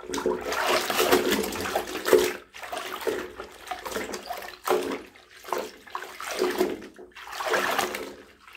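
White T-shirts being worked by hand in a plastic bucket of soapy water: sloshing and splashing in repeated surges about once a second as the cloth is swished and pushed under.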